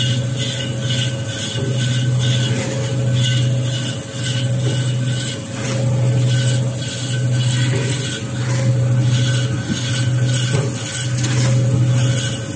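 Manual band-saw paper log cutter running steadily with a loud hum, its blade slicing kitchen towel logs into rolls. The sound changes in a regular rhythm about every second and a half as each cut is made.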